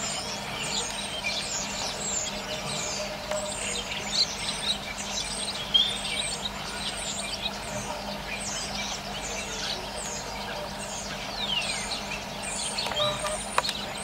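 Many birds chirping and whistling in quick, overlapping short calls, over a faint steady hum, with a single sharp click near the end.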